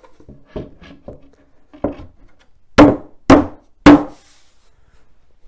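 Wooden shelf panels being knocked into place: a few light knocks, then three loud knocks about half a second apart.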